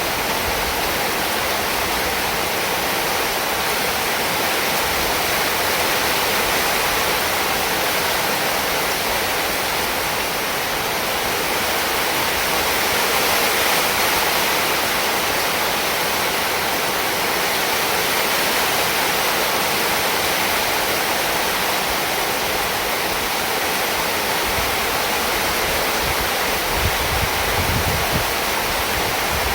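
Heavy rain falling, a steady dense hiss, with a few brief low thumps near the end.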